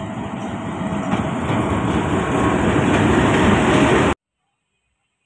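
Diesel locomotive at the head of a passenger express approaching and passing close by, its engine and wheel noise growing louder. The sound cuts off suddenly about four seconds in.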